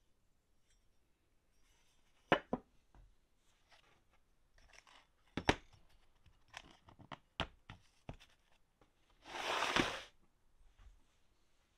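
A plane iron and tools handled on a workbench: a string of sharp knocks and clicks, then one short rasping scrape about nine and a half seconds in.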